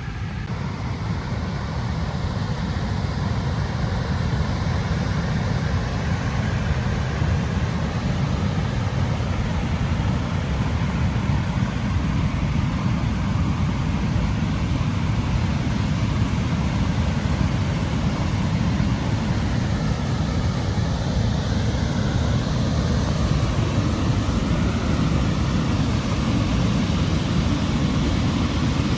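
Brekkefoss waterfall rushing: a steady roar of falling water, heaviest in the deep rumble.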